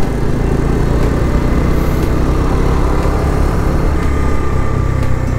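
Bajaj Dominar's single-cylinder engine running steadily as the motorcycle cruises at about 40 km/h, heard from the rider's seat.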